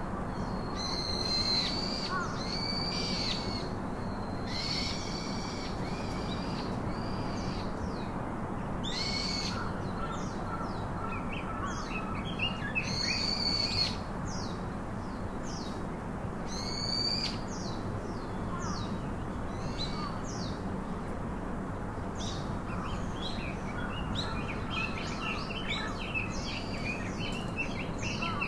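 Birds calling repeatedly: clear whistled calls about a second long, with a run of quick short chirps near the end, over a steady low background rumble.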